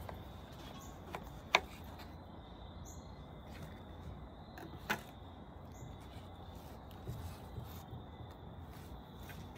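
Kitchen knife cutting through the tough stem of a hen of the woods (maitake) mushroom, with two sharp knocks of the blade on the cutting board, a loud one about a second and a half in and a softer one near the middle.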